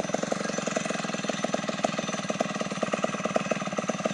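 Stihl chainsaw engine running steadily with a rapid, even pulsing.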